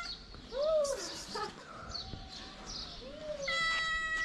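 Stray cats meowing: a short rising-and-falling meow about half a second in, another about three seconds in, then a long, level meow that starts near the end.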